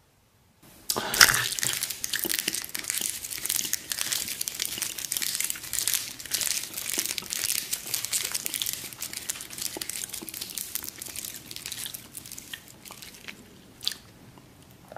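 Dry woven basket strands crackling and crunching as hands bend and tear the weave apart. It starts about a second in with a sharp crunch, goes on as dense crackling, and thins out near the end, with one more sharp crack.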